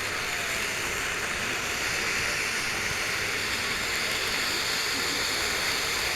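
Cutting Edge "Wacky Cottage" spinning fountain firework burning, giving a steady spraying hiss of sparks.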